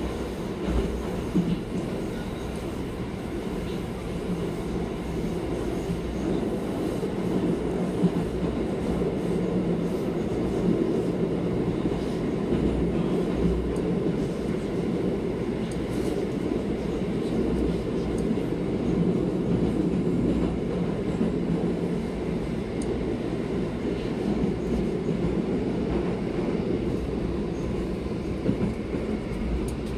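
Moscow Metro 81-765 'Moskva' train running through a tunnel, heard from inside the passenger car: a steady rumble of wheels on rails with a few short knocks.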